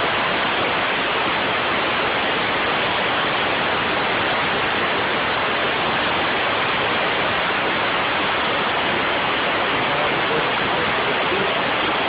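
Steady hiss of compressed air venting through the four-way solenoid valve's throttled exhaust as a Kinetrol Model 20 double-acting pneumatic vane actuator slowly strokes a butterfly valve; the exhaust is adjusted for a full stroke of about 60 seconds.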